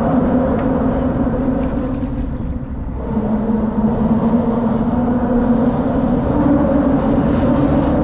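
Cars crossing the bridge overhead, their tyres humming on the open steel grid deck: a steady droning hum over a low rumble that changes pitch and swells again about three seconds in as the next vehicle crosses.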